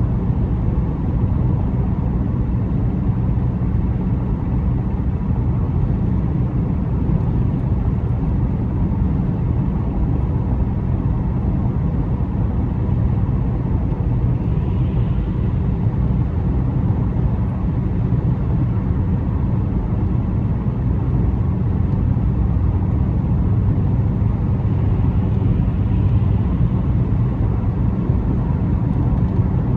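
Car driving at steady speed: a continuous low rumble of engine and tyre noise that holds even throughout.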